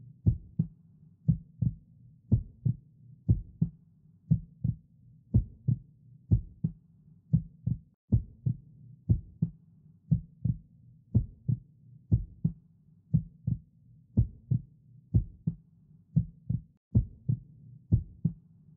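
Heartbeat sound effect: a steady lub-dub of paired low thumps, about one beat a second.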